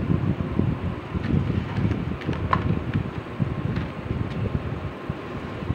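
Low, uneven rumble of moving air on the microphone, with a few light clicks and taps as a glass dish and its cardboard box are handled, and one brief clink about two and a half seconds in.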